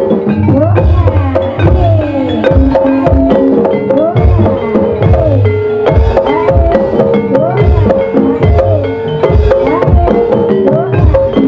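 Live gamelan music accompanying an ebeg dance: regular kendang drum strokes under a steady melody of struck tuned percussion, with a gliding melodic line over it.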